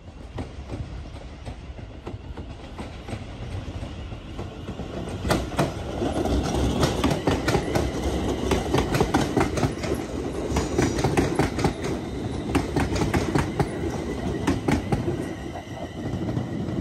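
Train running through on the track, its rumble growing louder about five seconds in, with a rapid run of wheel clicks over the rails from then on.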